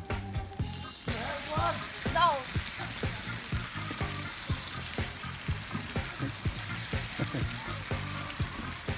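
Chicken sizzling as it cooks over a campfire; the dense sizzle swells up about a second in and runs on steadily. Background music with a steady beat plays underneath.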